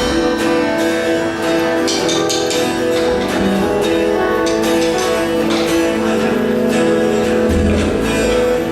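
Guitar strumming chords through a PA during a band's sound check, with held notes over it and deep bass notes near the start and again about seven and a half seconds in.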